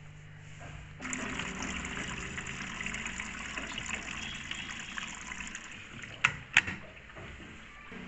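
Water from a Samsung front-load washing machine's inlet valve pouring into the detergent dispenser drawer as the wash cycle fills. It starts suddenly about a second in, runs steadily, and fades after about five seconds. Two sharp clicks follow near the end.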